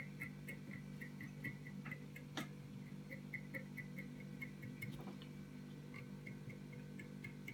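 Faint, quick, regular ticking, about four ticks a second, over a steady low hum, with a light click now and then.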